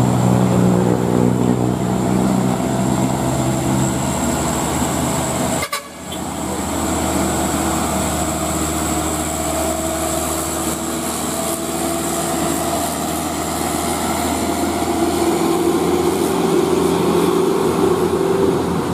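Diesel engine of a sand-laden Mitsubishi Canter dump truck running under load as it climbs a hill. The sound cuts out for a moment about six seconds in, then truck engine noise carries on steadily.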